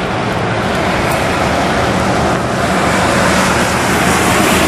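Steady road noise inside a moving car on a wet, slushy road: tyre noise over a low engine hum.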